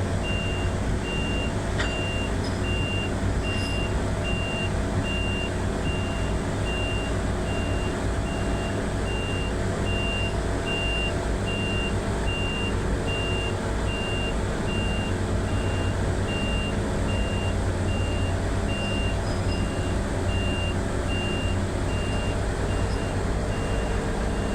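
A machine hums steadily, with a high electronic beep repeating at an even pace over it.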